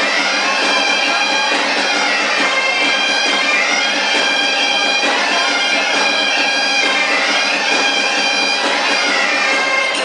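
Bagpipe music: a lively dance tune played over a steady drone, continuous and at an even level throughout.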